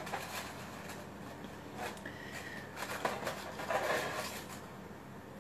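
Quiet room with faint scattered clicks and soft rustling handling noises, and a brief faint high tone about two seconds in.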